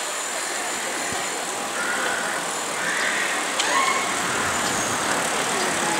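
Steady noise of a group bicycle ride on a city street, with faint voices of riders in the distance.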